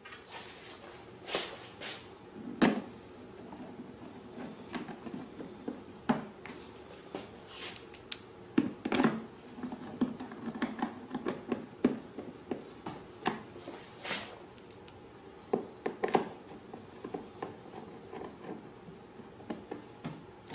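Hands fitting and pressing the plastic side cover of a Predator 2000 inverter generator into place: irregular clicks, taps and knocks of plastic as its tabs and buttons are pushed into their slots and grommets.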